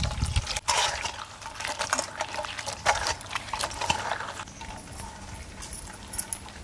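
Dried brinjal pieces being washed by hand in a vessel of water: irregular sloshing and splashing, with a few sharp knocks.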